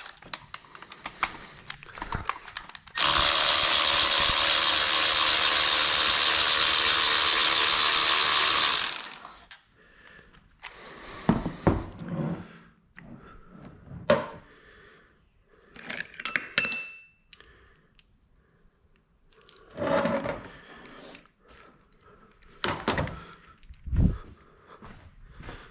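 A handheld power tool runs steadily for about six seconds, then stops, followed by scattered clicks and knocks of hand tools and parts being handled.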